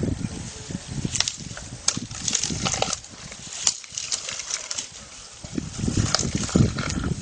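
An elephant's trunk rustling and snapping a bundle of cut grass stalks. It comes as scattered sharp cracks over irregular dull low thumps, and goes quieter just after the middle.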